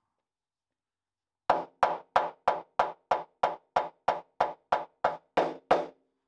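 Rubber mallet knocking a rubber-and-steel-tube suspension bush into a Land Rover Series 2 rear spring hanger: about fourteen even blows, three a second, starting about a second and a half in. The unbonded bush goes in easily.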